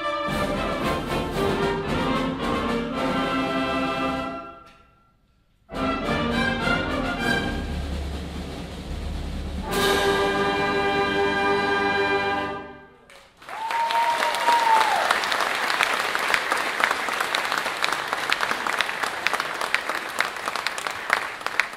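Concert band of brass, saxophones and woodwinds playing the final bars of a march: the music breaks off for about a second, comes back in, and ends on a held final chord about thirteen seconds in. The audience then applauds, with one long whistle that drops in pitch at its end.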